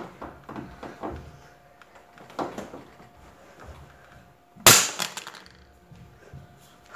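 A Nokia 107 feature phone hitting a hard floor: one sharp, loud crack about two-thirds of the way in, with a brief clatter after it. Softer knocks and shuffling come before it.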